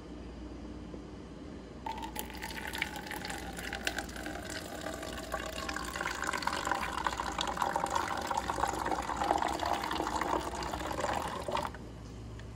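Cold water poured from a measuring cup into a plastic 2-liter soda bottle. The steady pouring starts about two seconds in, grows a little louder, and stops abruptly near the end.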